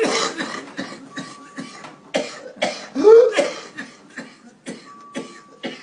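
A person coughing in a long, rapid run of short coughs, about three or four a second, with a short rising voiced note about three seconds in.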